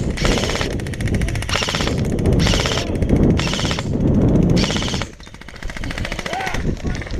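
Airsoft guns firing on full auto in repeated short bursts, a rapid stream of sharp clicks, over a low rumble. The firing stops about five seconds in.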